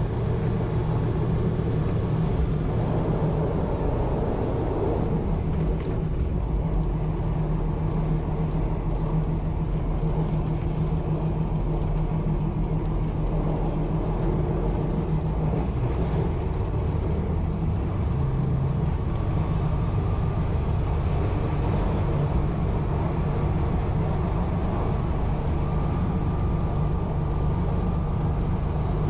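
1920s CPH railmotor running at speed: a steady engine hum over wheel and track rumble, the engine note changing slightly about halfway through.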